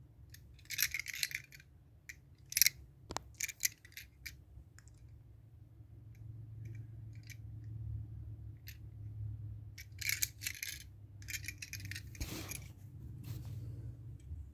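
Small diecast metal toy cars being handled, clicking and clinking against each other and the fingers in scattered clusters, over a steady low hum.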